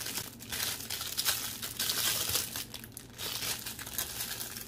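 Clear plastic bag crinkling in the hands as it is pulled open, a run of irregular crackles.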